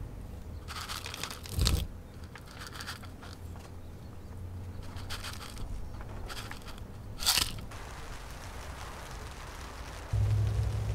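Gravel top dressing poured from a small plastic pot onto a potted seedling, the grit trickling and rattling in uneven spells, with two louder crunching scrapes about 1.7 s and 7.3 s in. Near the end a steady low rumble starts.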